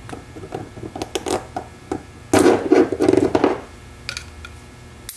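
Small metal transmission parts handled on a workbench: scattered light clicks and taps, then about a second of clattering rattle around two and a half seconds in, and a couple of sharp clicks near the end.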